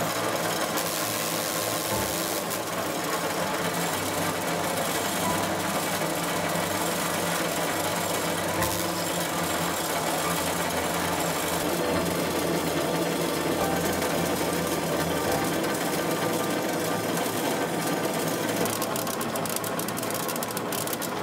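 Roller sorting machine running, with a steady, rapid rattle of small metal screws as they are sorted and defective ones are picked out; sharper clicks crowd in near the end.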